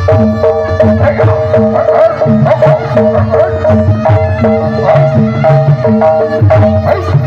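Loud live traditional dance music: hand drums strike a fast, busy rhythm under two held steady tones, a repeating low note and a wavering melody line.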